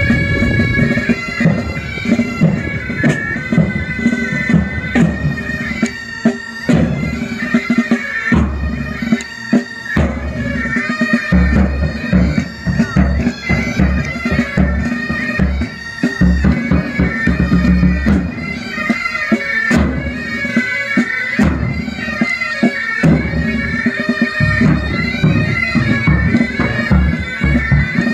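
Military pipe band playing: bagpipes sounding a tune over their steady drones, with bass drum and tenor and snare drums beating time.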